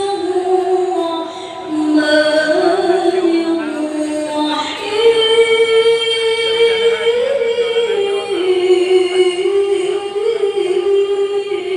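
A single voice chanting Quranic recitation (tilawah) in a slow, melodic style, drawing out 'ar-Rahman' of the basmala in long, ornamented, wavering held notes. There is a short breath about a second and a half in.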